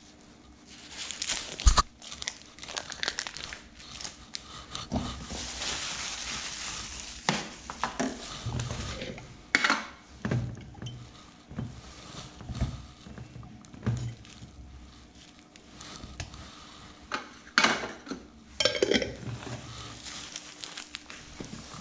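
Plastic film crinkling and rustling as a sausage's casing and its wrapping are peeled off and crumpled by hand, with scattered clinks and knocks of utensils against a glass jar and a stainless steel worktop.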